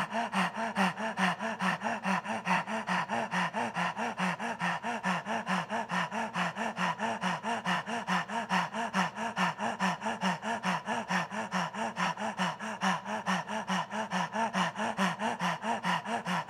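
A man panting rapidly through his open mouth with his tongue stuck out (Dog Breath pranayama): quick, even in-and-out breaths, several a second, with a slight voiced edge on each.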